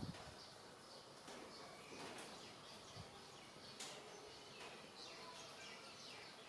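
Near silence with faint, high, short chirps of small birds scattered throughout, and a soft low thump at the start and another about three seconds in.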